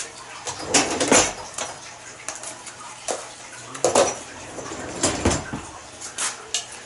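Kitchen dishes and utensils clattering as they are handled: a series of scattered clinks and knocks, the strongest about a second in and again around four and five seconds.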